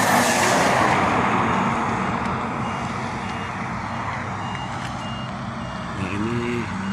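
Highway traffic passing in the dust fog: a vehicle's rushing tyre and engine noise is loudest at the start and fades over the first few seconds. From about three seconds in, a steady electronic beep repeats evenly.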